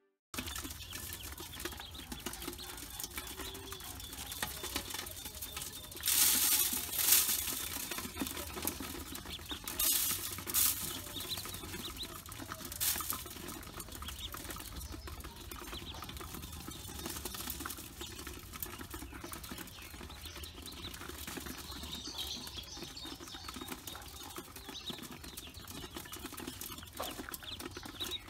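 Ducklings peeping and pattering about in an aluminium bowl as they peck at grain, with a few louder scuffling bursts about six and ten seconds in.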